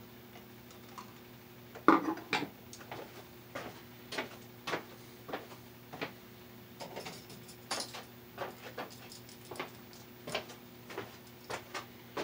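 Irregular light clicks and taps of small tools and wiring parts being handled, about one or two a second, the loudest about two seconds in, over a faint steady hum.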